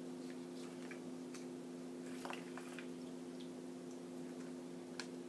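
Handheld lever citrus press squeezing lime halves: faint squishing of juice and pulp with a few small clicks of the press. A steady low hum lies underneath.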